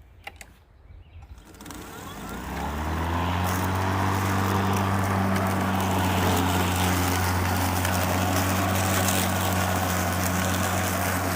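Greenworks 40 V cordless electric lawn mower starting: a few clicks, then the motor and blade spin up over a second or two and settle into a steady hum with a rushing whir.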